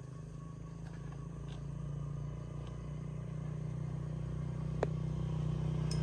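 An engine running steadily with a low rumble, growing slowly louder, with a few faint clicks over it.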